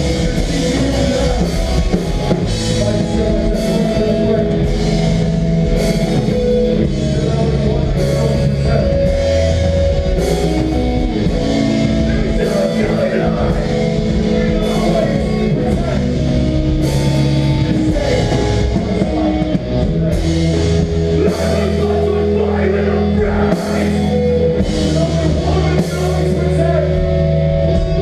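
Melodic hardcore band playing live: distorted electric guitars and bass holding chords over a drum kit, with cymbal crashes every second or two.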